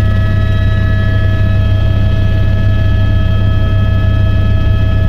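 Helicopter heard from inside the cabin in flight: a loud, steady low drone of rotors and engine with several steady high whining tones over it.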